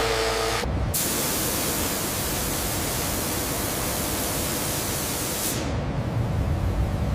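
Loud, steady hiss of sawmill machinery, starting after a brief break about a second in and changing near the end to a lower, duller rumbling noise.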